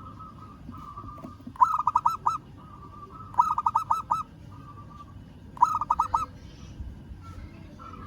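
Zebra dove (perkutut) cooing: three loud phrases of four or five quick staccato notes, about two seconds apart, with a softer rolling trill between them.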